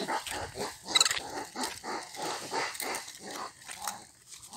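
Animal calls: a quick run of short yelping and growling sounds, with one sharp, high squeal about a second in.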